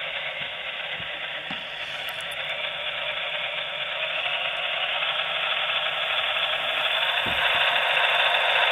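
HO-scale model diesel locomotive running, its QSI sound decoder playing the engine sound of an Alco RSD-15 through the model's small speaker, with the whir of its motor and gear drive; a steady sound that grows gradually louder.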